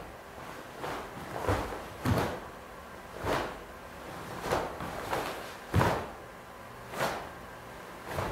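Bare feet striking a mat and a taekwondo uniform snapping with each block and strike while a poomsae is performed. About nine short, sharp sounds come at irregular intervals of roughly a second.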